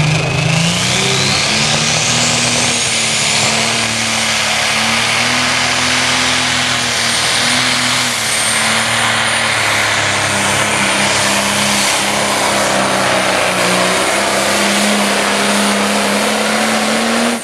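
John Deere pro stock pulling tractor's turbocharged diesel engine under full throttle, hauling a weight-transfer sled. A turbocharger whine climbs steeply over the first few seconds and then holds high and steady above the engine note.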